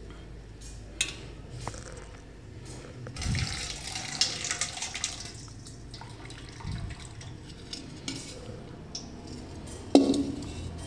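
Liquid poured from a steel pot through a small metal strainer into a steel container, a splashing stream lasting about three seconds, amid light clinks of steel utensils. A sharp metallic clink of steel pot and lid near the end.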